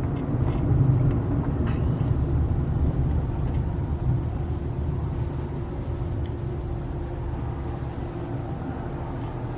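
Car running, heard from inside the cabin: a steady low engine and road rumble that slowly gets quieter, with a faint steady hum coming in about halfway through.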